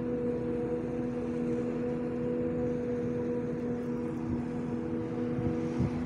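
An engine running at a steady speed: a constant drone with an unwavering hum and no change in pitch.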